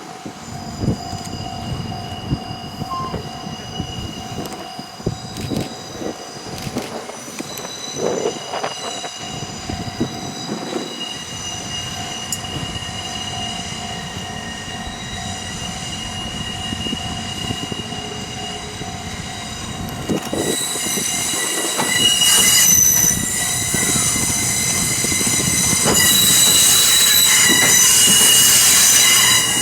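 A 700 series Shinkansen trainset running on rails with steady high-pitched wheel squeal and scattered knocks from the wheels. It grows louder about twenty seconds in.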